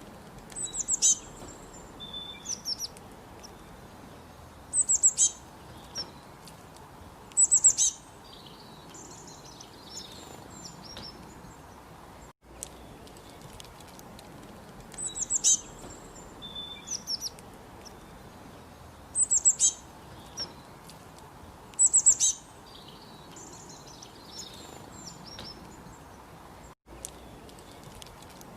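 Small birds chirping in short bursts of quick, high notes every few seconds over a steady background hiss. The same stretch of chirping repeats about every fourteen and a half seconds, each time after a brief dropout, as in a looped recording.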